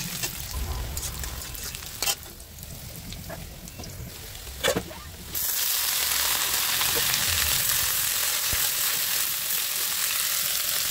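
Onions and chillies frying in oil in an aluminium kadai, stirred with a metal spatula, with two sharp clinks of the spatula against the pan about two and four and a half seconds in. About five seconds in, a louder, even sizzle sets in suddenly, with shredded cabbage frying in the pan.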